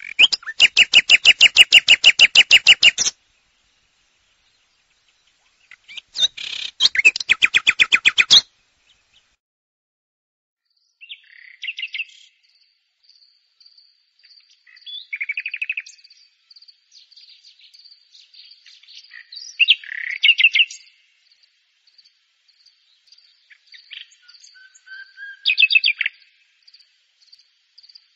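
Common nightingale singing: two loud phrases of rapidly repeated notes, then quieter, varied phrases after a pause. A faint, steady run of high ticks runs behind the later phrases.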